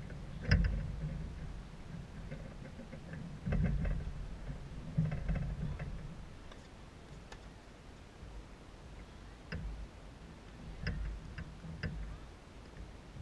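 Wind buffeting the microphone in uneven low rumbles, with a handful of sharp knocks of tennis balls on the courts; the loudest knock comes about half a second in, and several lighter ones follow in the second half.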